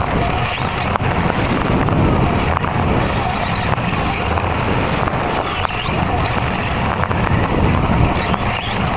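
Electric RC touring cars racing on carpet: high-pitched motor whines that rise and fall again and again as the cars accelerate and brake, over a steady low rumble.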